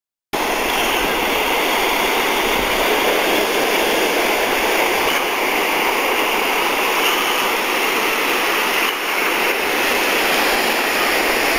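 Surf breaking and washing up on a sandy beach: a steady, even rushing noise that comes in after a moment's silence at the very start.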